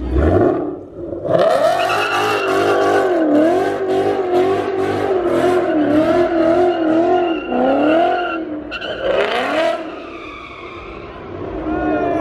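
Ford Mustang doing a donut: its tyres squeal with a pitch that wavers up and down as the engine is revved hard. This runs from about a second in until about eight seconds, with a shorter burst around nine seconds. The sound then drops off briefly before a rising rev near the end.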